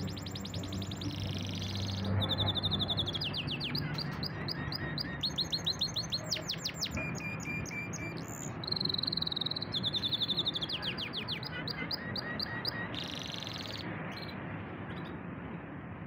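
Domestic canary singing a long song of fast trills, rolls and quickly repeated high notes, changing phrase every second or two; the song stops about two seconds before the end.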